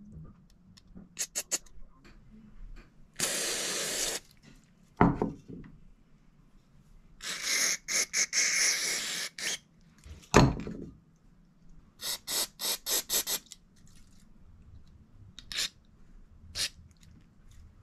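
A spray can's thin straw hissing in two bursts into the passages of a stripped Tillotson diaphragm carburetor, the second about twice as long as the first. Between them come a couple of knocks and runs of sharp clicks as the small metal carb body and its parts are handled.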